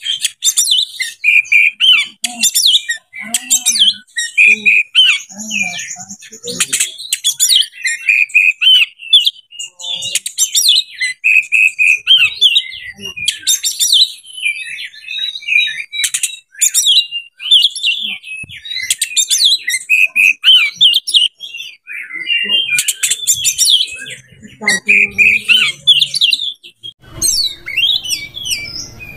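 Oriental magpie-robin (kacer) singing a rapid, varied, continuous song of whistles and chattering notes. A low background noise joins near the end.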